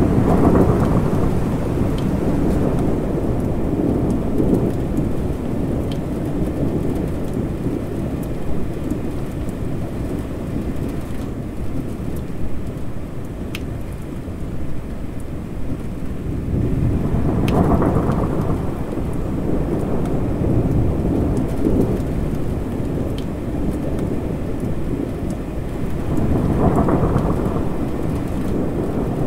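Steady rain with rolling thunder, the low rumble swelling three times: at the start, a little past halfway, and near the end. A few sharp ticks stand out over the rain.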